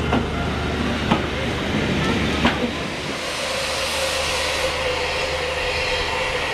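Railway passenger coaches rolling slowly past, with a low rumble and a few sharp clicks of the wheels over rail joints. About three seconds in, a steady hiss with a held tone takes over.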